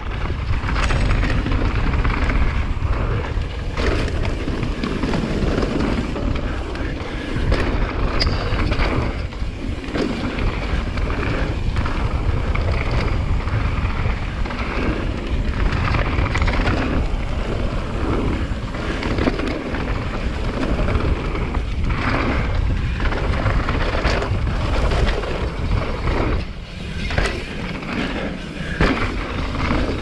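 Downhill mountain bike riding a dirt trail at speed: steady wind rumble on the microphone and tyre noise, with the bike clattering over bumps again and again.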